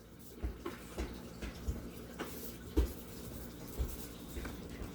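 Light clicks and small knocks, about seven spaced irregularly with the loudest near the middle, of tiny diecast car parts such as wheels being handled and set down on a work surface.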